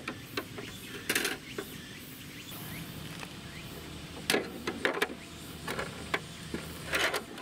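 Short plastic clicks and knocks from a toy garage's roll-up doors and a ball being handled, over a steady low background hum.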